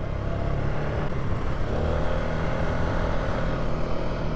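Polaris ATV engine running steadily while riding along a dirt trail, the revs picking up a little about two seconds in.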